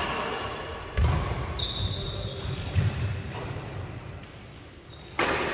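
Footsteps and dull thumps of players moving on an indoor badminton court, with thumps about a second in and near three seconds. A short high squeak comes around two seconds, and a sudden louder burst of noise near the end.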